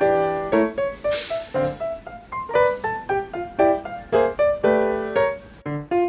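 Background music: a light piano melody of short, quickly fading notes, with a brief soft swish about a second in.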